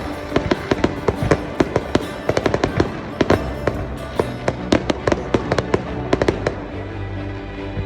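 Aerial fireworks bursting in rapid succession, a dense run of sharp cracks and bangs that thins out toward the end, with music playing underneath.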